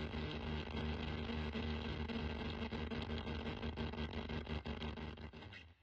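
Logo-intro sound effect: dense crackling, static-like noise over a steady low hum, fading and cutting off near the end.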